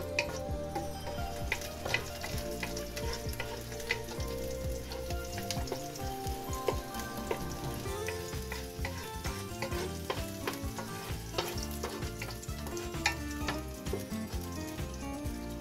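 Chopped garlic sizzling in hot oil in a nonstick pot while a wooden spoon stirs it, with frequent light taps and scrapes of the spoon against the pan.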